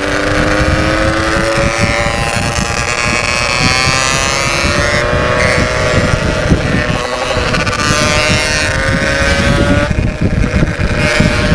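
Yamaha RX-King's 135cc two-stroke single running under throttle through an aftermarket 'setengah dewa' exhaust, its note climbing slowly and steadily in pitch, with wind rumbling on the microphone.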